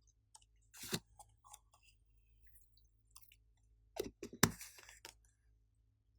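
Glossy slime being worked by hand, giving sticky crackles and small popping clicks, loudest about a second in and again around four seconds in.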